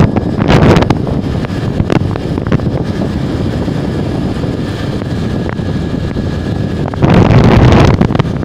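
Wind buffeting a phone microphone, a loud low rumble that gusts harder about half a second in and again in the last second and a half.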